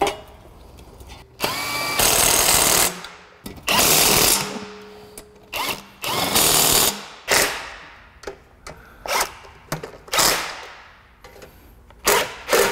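Cordless impact wrench running the exhaust manifold and heat-shield fasteners on a Honda K-series engine in short bursts: two runs of about a second each near the start, then several brief blips.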